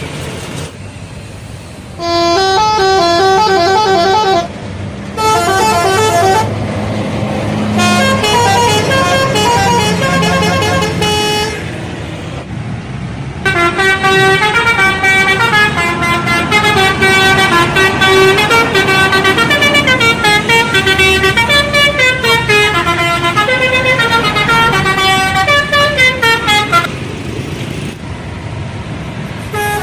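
Bus telolet horn, a multi-trumpet air horn, playing melodic tunes of quick stepping notes. It sounds in three short bursts over the first eleven seconds, then after a brief pause in a long run of changing notes lasting about thirteen seconds.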